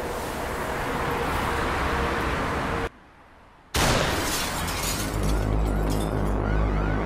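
Cinematic action soundtrack: a rising swell cuts off suddenly a little under three seconds in, then after a moment of near silence a loud boom-like impact hits, followed by a deep low rumble under music.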